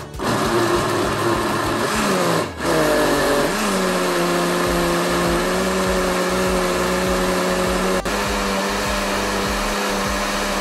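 Logik countertop blender motor blending carrots, fruit, ice cubes and water into a smoothie. It cuts out briefly twice in the first three seconds, its pitch sags and climbs back, and then it runs at a steady, even hum until it stops at the very end.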